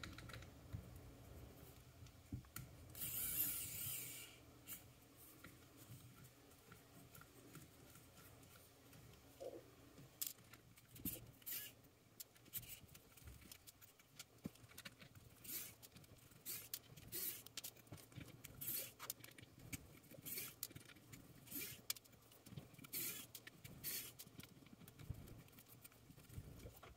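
Faint scattered clicks and light scrapes of a small screwdriver working screws out of the drone's motor quick-release plates, and of the small screws and plastic plates being set down on a wooden table. A brief hiss sounds about three seconds in.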